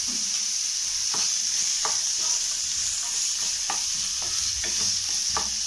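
Diced carrot, green beans and onion sizzling in oil in a nonstick frying pan, a steady high hiss. A wooden spatula stirs them, scraping and tapping against the pan about seven times.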